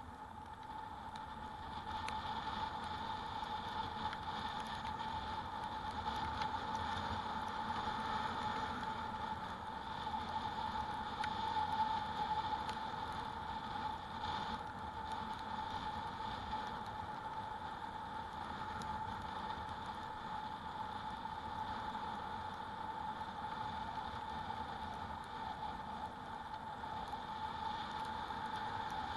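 Riding noise from an e-bike on the move: steady wind and road noise with a constant mid-pitched whine.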